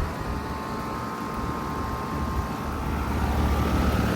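Outdoor heat pump condenser unit running: a steady hum of compressor and fan with a faint steady tone, a little quieter at first and swelling back up over the last second or so.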